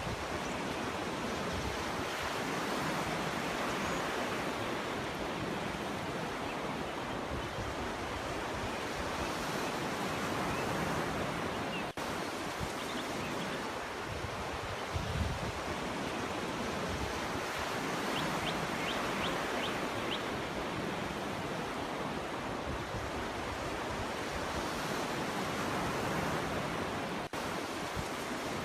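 Sea surf washing onto a beach: a steady wash of breaking waves that swells and eases every few seconds. A few faint short high chirps come through the surf about two-thirds of the way in.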